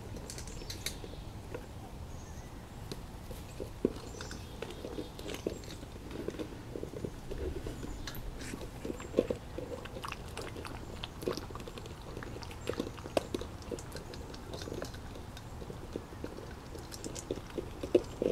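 A litter of doodle puppies chewing: gnawing and mouthing an empty plastic container, then eating kibble from stainless steel bowls, with many small irregular clicks and taps throughout.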